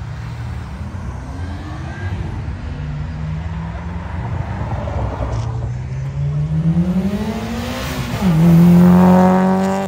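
Cars accelerating hard past the roadside one after another as they leave a car show. Engine pitch climbs steadily as one revs out a gear, drops at a shift about eight seconds in, then pulls loudly in the next gear. That is the loudest part, and it falls away abruptly at the end.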